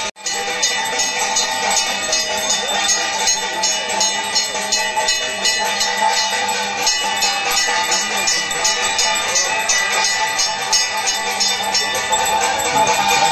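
Temple bells rung rapidly and without a break during the mangalarati (aarti) lamp-waving: a steady ringing made of many strikes a second.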